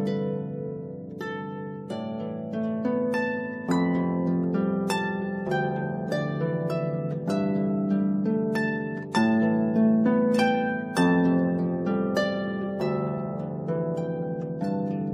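Solo harp music: a steady flow of plucked notes, each ringing on and fading, over lower notes that sustain beneath the melody.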